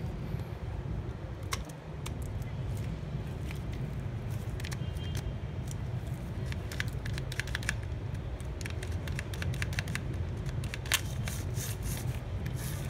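Small plastic clicks and rattles as a cordless drill's gearbox and clutch collar are turned and pushed into place on a new motor, over a steady low background rumble. The clicks come thicker in the second half.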